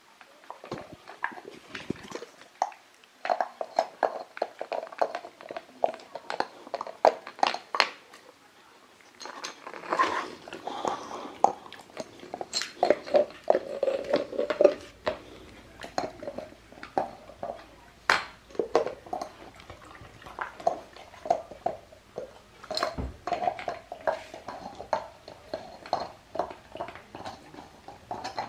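Boxer puppy gnawing a long hard chew: irregular teeth clicks, scrapes and crunches, with the chew knocking against the hard floor, briefly quieter about a third of the way in.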